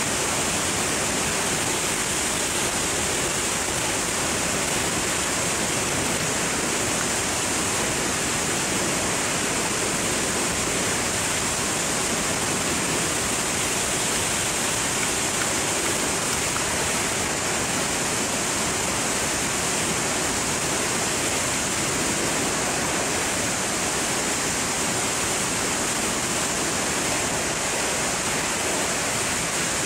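Steady rush of freefall wind over the camera's microphone during a skydive, an unbroken even hiss.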